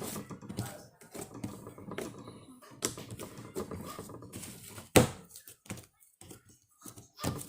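Slime being worked by hand: a run of wet clicks and crackling pops, with one loud smack about five seconds in.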